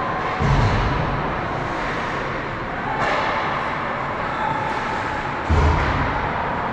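Steady noise of an ice hockey game in an indoor rink, with two dull low thuds, about half a second in and again about five and a half seconds in.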